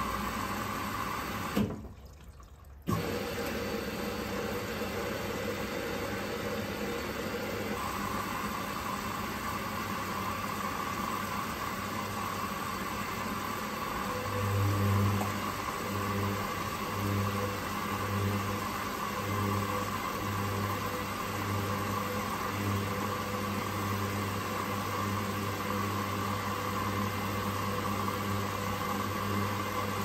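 Hoover-built Teco 9 kg front-loading washing machine running its wash, the drum turning the wet load with water sloshing. A low hum comes in about halfway, pulsing on and off at first and then steady. The sound dips briefly about two seconds in.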